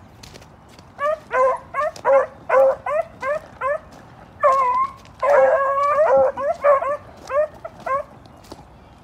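Beagles giving tongue on a rabbit trail: a quick run of short barks starting about a second in, with longer drawn-out bawls from more than one dog overlapping in the middle, stopping about a second before the end.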